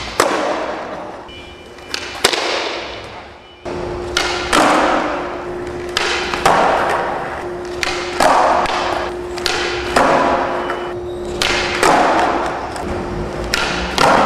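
Skateboards on smooth concrete during flatground tricks: sharp clacks of tails popping and boards landing, about every one to two seconds, with the hiss of urethane wheels rolling in between.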